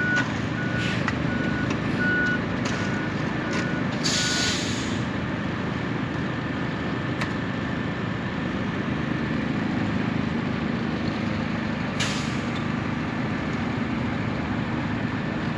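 A heavy truck's diesel engine running with its reversing alarm beeping about twice a second. The beeping stops about four seconds in with a burst of air brake hiss, and a second short hiss comes near the end.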